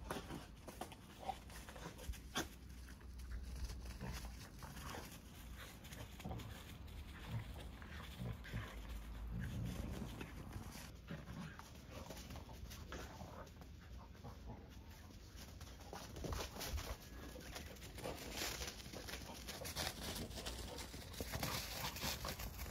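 Two dogs play-fighting, a white adult dog and a small brown puppy wrestling, with irregular scuffles and short dog noises throughout.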